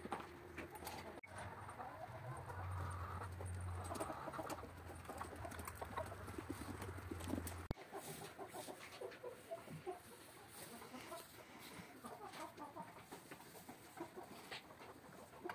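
Chickens clucking quietly, with scattered light rustles and ticks. A low hum runs under the first half and stops suddenly about eight seconds in.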